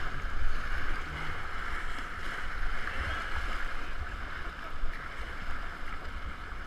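Whitewater rapids rushing steadily around a kayak in the current. A low rumble of wind and water buffets the action camera's microphone, and a couple of louder splashes come about half a second in and near five seconds.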